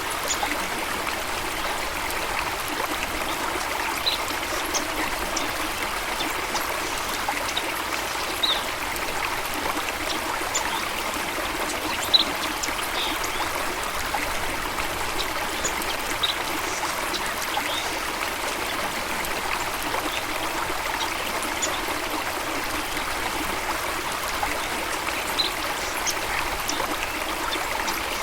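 Running water trickling and flowing steadily, with a few scattered brief high-pitched sounds over it.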